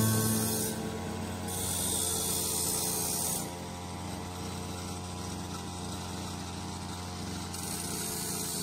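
Petrol brush cutter running steadily at speed, its cutting hiss louder for about two seconds after the first second and again near the end.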